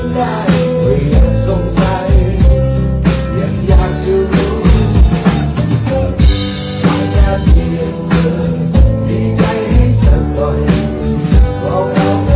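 Rock band playing live through a concert PA: a drum kit keeps a steady beat under acoustic and electric guitars.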